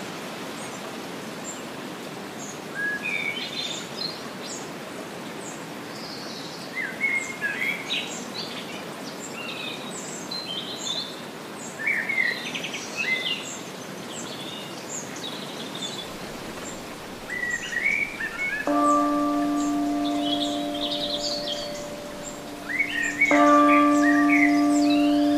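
Birds chirping and singing in a dawn chorus over a steady background hiss. Near the end a bell is struck twice, about four and a half seconds apart, each stroke ringing on with several steady tones.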